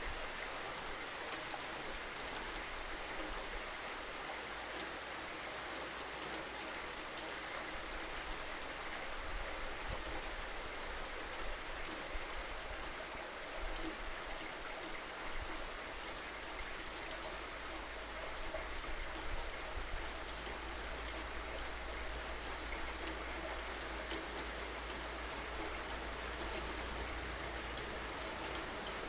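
Steady rain falling: an even hiss with scattered drop ticks, over a low rumble that grows stronger in the second half.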